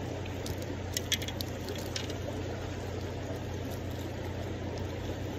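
Steady rush of a fast-flowing river, with a few light clicks about one to two seconds in.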